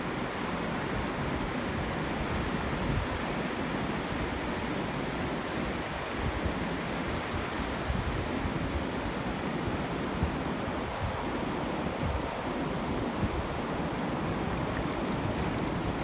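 Shallow ocean surf washing over sand, a steady hiss of water, with wind buffeting the microphone.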